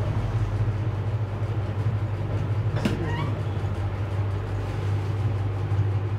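A steady low hum with a hiss over it. About three seconds in, a single short click with a brief rising chirp.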